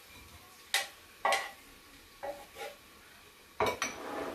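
A metal spoon clinks and scrapes against a frying pan and a ceramic bowl as fried prawns are spooned out: about six sharp clinks, the loudest a quick double near the end.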